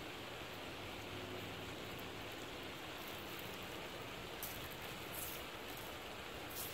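Faint steady outdoor hiss, with a few brief rustles from hands handling cord and a wooden toggle about four and a half, five, and six and a half seconds in.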